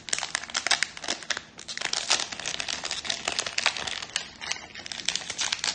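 Trading-card pack wrapper crinkling and tearing as it is opened by hand, a dense irregular run of crackles.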